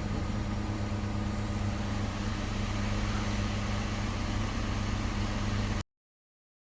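Toyota Corolla Fielder engine idling steadily, then the sound cuts off abruptly near the end.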